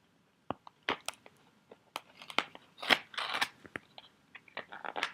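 Trading-card pack wrapper being worked open by hand: scattered sharp crackles and crinkling rustles, busiest about three seconds in.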